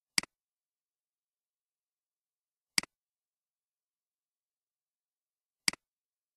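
Three computer mouse clicks about three seconds apart, each a sharp click followed at once by a fainter one, with silence between them.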